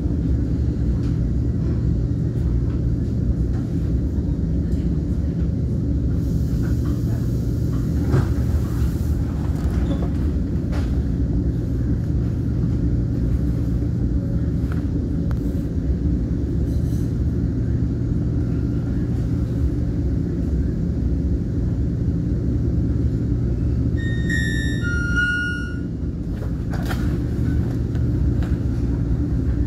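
Commuter train rumbling steadily, heard from inside the coach as it slows to a stop and stands. Near the end comes a short run of electronic tones at a few different pitches.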